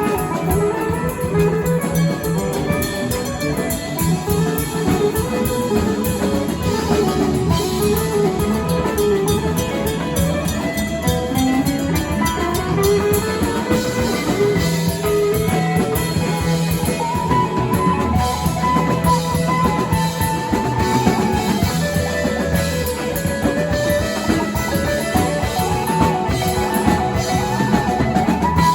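Guitar-led music with drums: a melodic guitar line with bending notes over a steady bass and drum beat.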